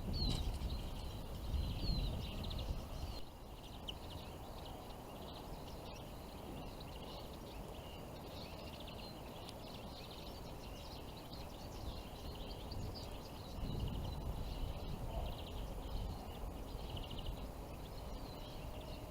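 Small songbirds chirping and twittering continuously, over a low rumble of wind on the microphone that is strongest in the first few seconds and again after about thirteen seconds.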